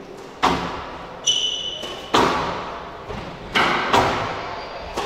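Squash ball being struck in a squash court: five sharp, echoing smacks of racket and wall, unevenly spaced, the last two close together. A short high squeak comes about a second in.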